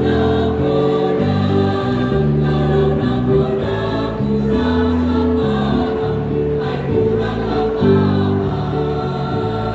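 Choir singing in harmony, several voice parts holding notes and moving to new chords together every second or so.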